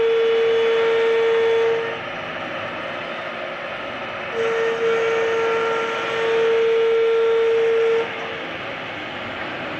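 CNC router machine running with a steady rushing noise. A loud, steady whine sounds over it twice: first until about two seconds in, then again from about four and a half to eight seconds.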